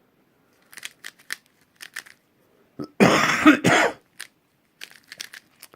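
Plastic speedcube (a Yushin Black 3x3) being turned by hand: scattered quick clicks of the layers. About three seconds in there is a loud cough in two parts, the loudest sound here.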